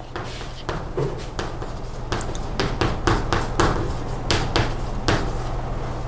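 Writing on a board: an irregular string of sharp taps and short scrapes, about two or three a second, over a steady low electrical hum.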